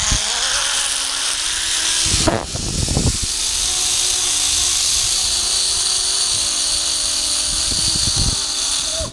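Zipline trolley pulley whirring along its steel cable during a ride, with wind rushing over the microphone. There are a few low thumps of wind buffeting about two and three seconds in, and the sound cuts off suddenly at the end.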